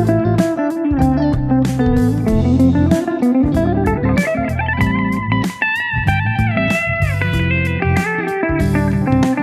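Semi-hollow-body electric guitar playing an improvised lead solo of single-note lines over a backing track with bass and drums, with a long upward slide in pitch around the middle.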